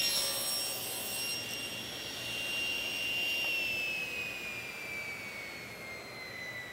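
Tablesaw cutting through a board in a miter crosscut: a short burst of cutting noise at the start, then the saw's steady high whine. About halfway through the whine slowly drops in pitch as the blade coasts down.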